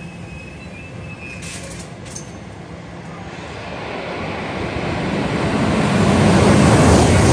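A train approaching on the main line, its rumble building steadily from about three seconds in until it is loud near the end as it reaches the platform.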